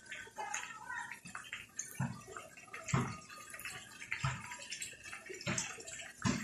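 Chorizo sausages frying in oil in an aluminium wok: a steady sizzle broken by irregular pops of spattering fat about once a second.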